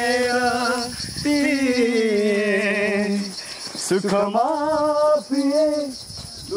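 A song with a voice singing long held notes that waver in pitch, one gliding slowly down, over a steady high shaker-like hiss.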